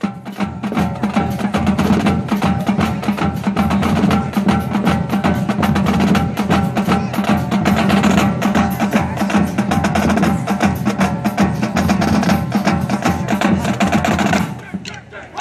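Massed marching bands playing a combined finale piece: rapid snare and drum strokes under sustained brass chords. The music breaks off briefly near the end.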